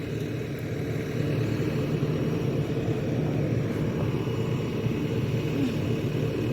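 A heavy-equipment diesel engine running steadily at constant speed.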